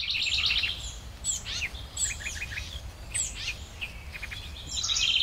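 Birds chirping and calling: rapid high trills at the start and again near the end, with short downward-sweeping notes in between, over a low steady rumble.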